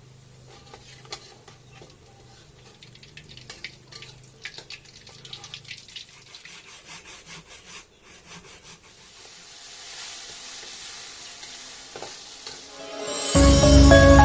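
Faint kitchen cooking sounds: scattered clicks and scrapes of utensils, then a steady frying hiss that builds over a few seconds. Loud music starts about a second before the end.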